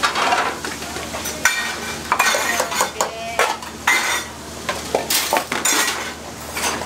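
Small aluminium stew pots clinking and knocking as they are gripped with metal pot tongs and shifted over gas burners, a rapid irregular series of metallic clinks, some ringing briefly, over a steady hiss.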